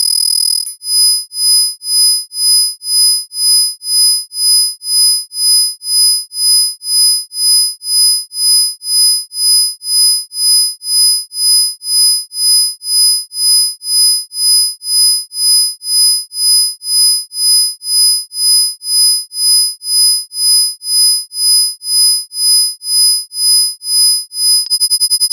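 Synthesised sine tones, a high pitch near 5 kHz and 10 kHz with fainter tones beneath, pulsing on and off about twice a second as a 2 Hz isochronic tone. The pulsing starts under a second in and changes to a much faster flutter near the end.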